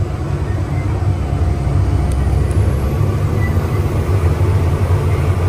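Self-propelled crop sprayer's engine running at a steady pitch and load as the machine drives across a hillside, heard from the operator's cab as an even, low drone.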